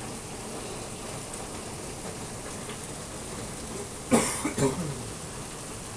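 Rain falling steadily, a constant hiss. About four seconds in, a person coughs twice, short and sharp, half a second apart.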